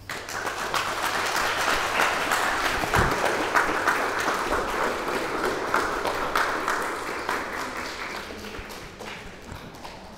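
A roomful of people applauding. The clapping breaks out all at once, is fullest a few seconds in, and slowly dies away near the end.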